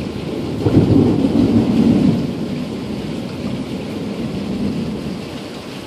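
Thunder rumbling, swelling about a second in and slowly dying away, over the steady hiss of rain.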